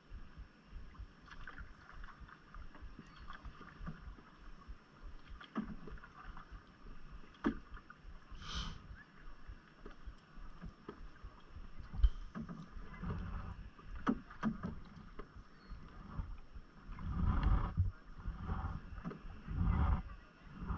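Water splashing and lapping around a canoe moving across a lake, with wind rumbling on the microphone. There is a single sharp knock about twelve seconds in, and louder swells of splashing every couple of seconds near the end.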